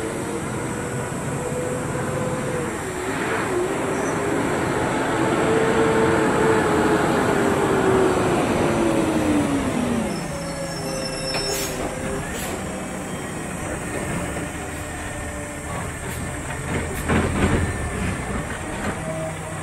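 Peterbilt 520 McNeilus ZR side-loader garbage truck approaching, its diesel engine growing louder while its brakes squeal in a tone that falls as it slows to a stop about halfway through. Then the engine idles steadily, with a few short sharp noises.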